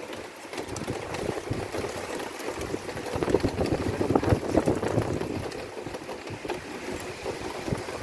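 Storm wind gusting and buffeting the microphone, rising and falling, strongest around the middle.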